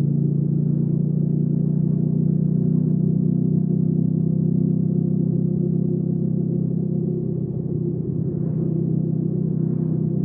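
Hyosung GV300S Aquila's V-twin engine running steadily while riding, easing off slightly about seven seconds in before pulling again.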